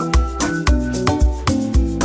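Background music with a steady, danceable beat: deep bass notes about twice a second, hand percussion and bright pitched instrument lines, in an Afrobeat-like style.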